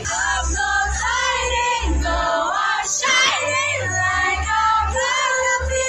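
Pop song playing on a karaoke machine, a high voice singing a sliding, drawn-out melody over a steady bass line.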